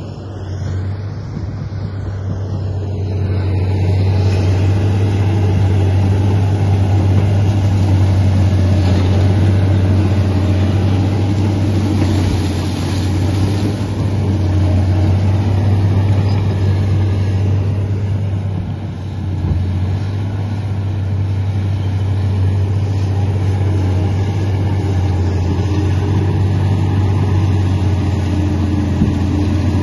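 Komatsu D85 bulldozer's diesel engine running steadily with a deep, even hum, growing louder about four seconds in.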